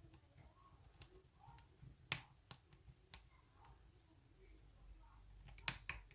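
Faint, irregular light clicks of lock picking tools working inside a Bi-Lock oval padlock, with a quick cluster of sharper clicks near the end.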